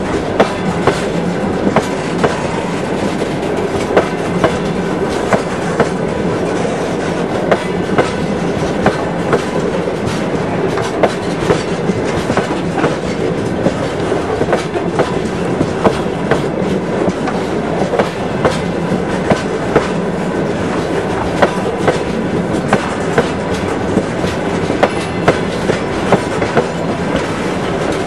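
Freight train of open gondola wagons rolling past, the wheels clacking over rail joints in regular sharp knocks over a steady rolling rumble.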